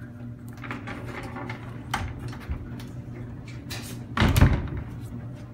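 Wooden closet door being moved: a few light clicks, then a louder knock and rub about four seconds in, over a steady low hum.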